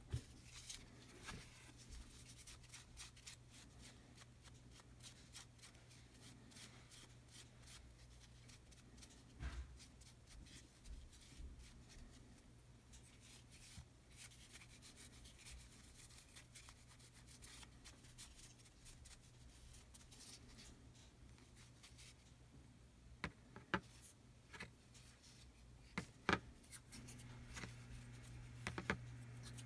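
Faint rubbing and handling of a small die-cast toy car body by fingers, wiping off excess paint wash, with scattered light clicks and taps that grow sharper near the end. A low steady hum lies underneath.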